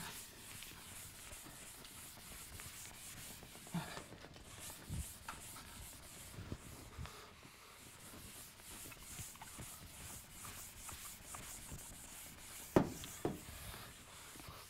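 Handheld chalkboard eraser wiping across a chalkboard in repeated strokes, a faint scrubbing swish. A few soft knocks come through it, the loudest near the end.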